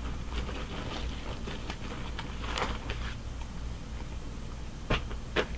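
Soft rustling and handling noises as a paint-by-number canvas is folded back up, with two sharp clicks near the end.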